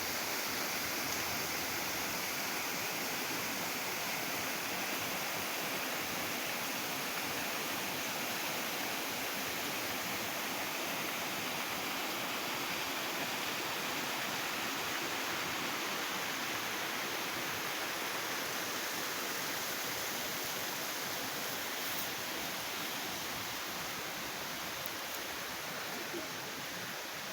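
Waterfall rushing steadily, an even roar of falling water, growing a little fainter over the last few seconds.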